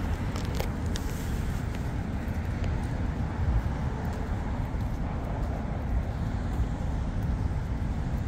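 Steady city street traffic, a continuous low rumble of passing cars, with a few faint clicks in the first second or so.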